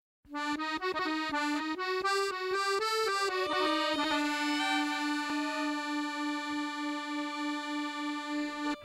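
Short instrumental music phrase on a single instrument: a quick run of notes, then one long steady note held for about the second half.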